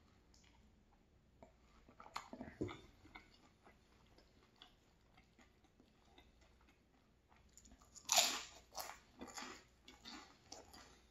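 Close-miked biting and chewing of flaky pastry, crisp crunchy clicks scattered through, loudest about eight seconds in. A soft knock comes about two and a half seconds in.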